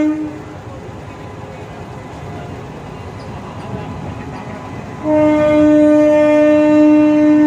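An Indian Railways electric locomotive's horn sounds a steady single note and cuts off just after the start. Then the freight train is heard rolling past for a few seconds. About five seconds in, the horn sounds again in one long, held blast.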